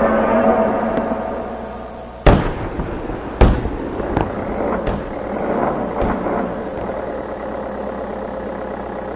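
A series of sharp blasts over a steady rumbling din: two loud ones about two and three seconds in, then several smaller ones. A pitched drone fades out over the first two seconds.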